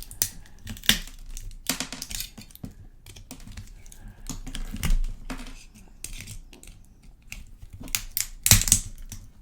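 Plastic casing of a microcassette recorder being pried and snapped apart by hand: an irregular run of sharp cracks and clicks, with the loudest burst of cracking near the end.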